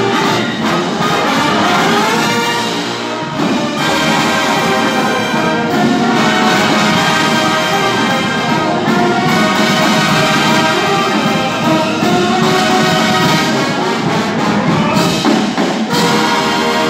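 Marching brass band playing live: trumpets, trombones and sousaphones together in a sustained, full arrangement.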